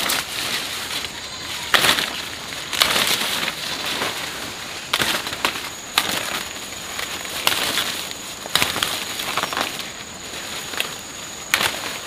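Dry plant leaves rustling and crackling, with sharp crunchy snaps every second or two.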